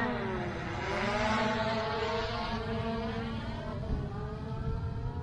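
DJI Mavic Air 2 quadcopter's motors and propellers whining as it climbs away. The whine drops sharply in loudness at the start, dips in pitch about a second in, then holds steadier and fainter. The drone was repaired after a dunk in water and sand, and it is flying normally.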